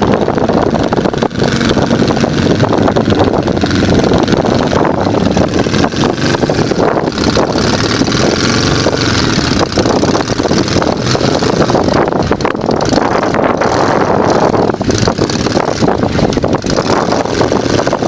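Side-by-side UTV engine running steadily under load as the machine crawls up a steep, rocky gully, with a rough, crackly noise over it.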